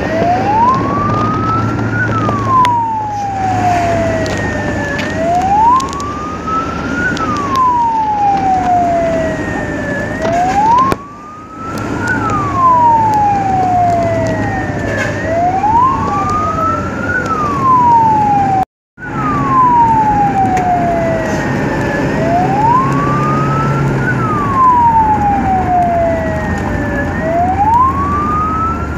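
Ambulance siren in wail mode, sweeping slowly up and down about every five seconds, over the vehicle's engine hum as heard from inside the cab. The sound drops out briefly twice, near the middle.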